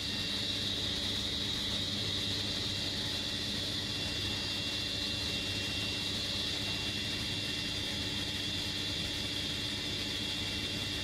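Table saw running steadily with a high, even whine from the blade and motor while a Sapele board is fed along it for a rip cut.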